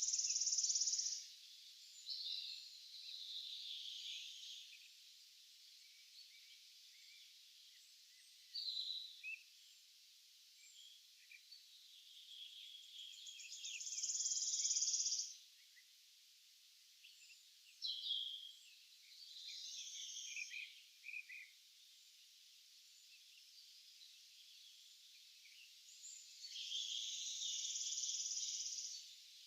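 Songbirds singing: a dense high trill about every 13 seconds, three times, with shorter chirps and calls from other birds between them.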